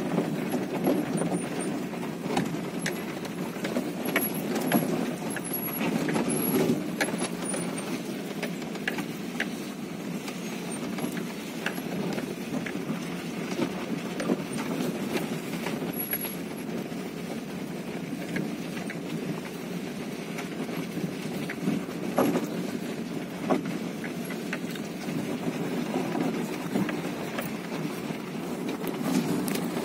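Car cabin noise while driving slowly on a gravel road: a steady engine and tyre rumble, with scattered small ticks and crunches from the gravel.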